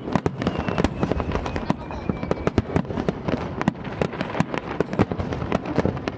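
Fireworks display in full swing: aerial shells bursting in rapid succession, a dense run of sharp bangs and crackles with a few thin whistling tones among them.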